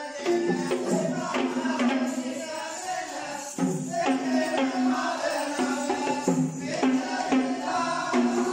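Music: drumming with many quick strokes under a melody of held notes, each lasting about a second.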